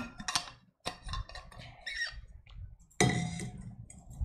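Metal water bottle being handled after a drink: scattered small clicks and clinks, with a louder sudden knock and rustle about three seconds in.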